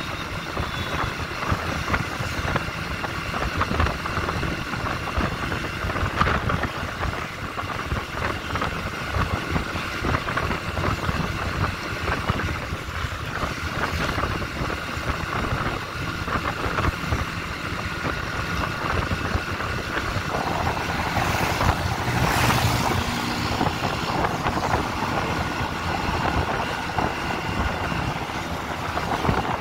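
Motorcycle riding along, its engine running under wind rushing over the microphone. A louder rush comes about three-quarters of the way through.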